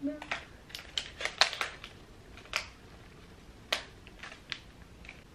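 Handling noise from a clear plastic bag and the small item in it: irregular sharp crinkles and clicks for about four seconds, loudest about a second and a half in.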